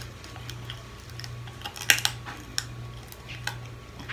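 Steamed blue crab claw shell clicking and cracking as it is picked and sucked at the mouth: a few scattered sharp clicks, the loudest about two seconds in. A low steady hum runs beneath.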